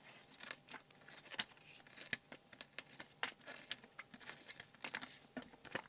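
Paper manuals and cardboard packaging being handled: quiet rustling with scattered light clicks and taps.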